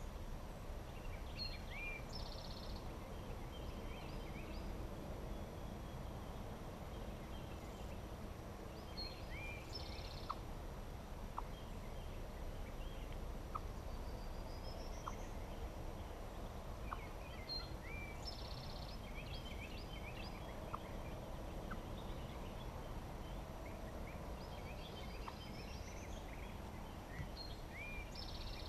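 A wild turkey tom gobbling four times, about every eight seconds, faint against songbirds chirping and whistling.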